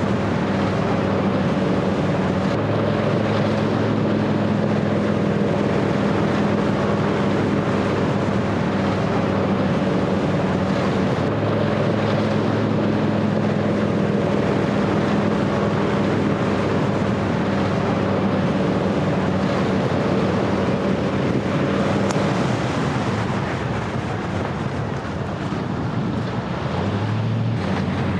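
Vehicle engine and road noise heard from inside the cabin while driving: a steady engine hum over tyre and wind noise, its pitch shifting slightly a few times, easing a little near the end.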